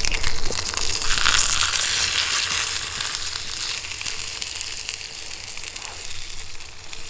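Salmon fillet sizzling skin side down in hot olive oil in a carbon-steel skillet, a dense crackling hiss that is loudest in the first few seconds and gradually quiets.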